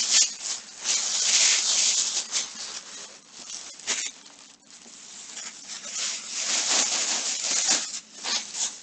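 Rustling and crinkling of craft purchases being handled and rummaged through close to the microphone, in irregular bursts with a short lull about halfway through.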